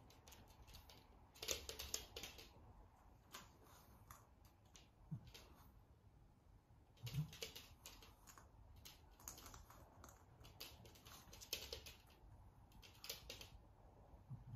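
Faint, irregular clusters of light clicks and taps as a cat and dog move about a spring-mounted treat cup on a wooden floor.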